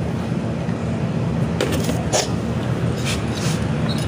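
A steady low rumble, with a few light clicks from small metal parts being handled.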